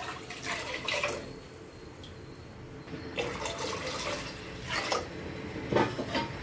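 Water poured in a stream from a steel bowl into a pressure pan of carrot juice, splashing into the liquid, with several short, sharper bursts along the way.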